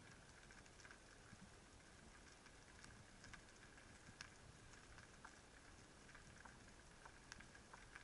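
Faint underwater ambience picked up by a camera in its housing: a low hiss with scattered, irregular sharp clicks and crackles.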